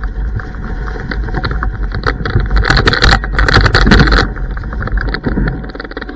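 An electric scooter's tyre rolling over a rough, leaf-covered dirt track, with a steady low rumble and many sharp knocks and rattles from the bumpy ground. The noise cuts off suddenly near the end as the scooter stops.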